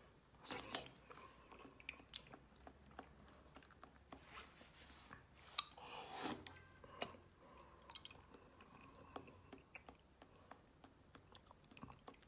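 Faint close-up mouth sounds of someone eating soft jelly: wet chewing with many small clicks, and a few louder sucking noises around four to seven seconds in as he takes jelly straight off the plate with his mouth.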